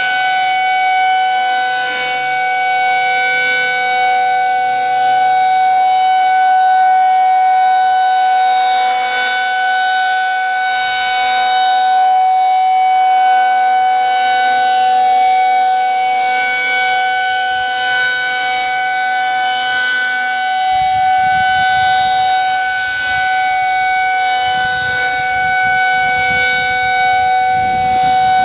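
Federal Signal 2001-SRNB outdoor warning siren sounding a loud steady alert tone, its pitch held constant.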